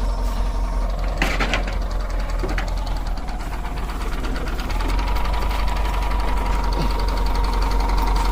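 Hand tractor engine running with a fast, even knocking beat. About five seconds in it gets a little louder and a steady whine joins it.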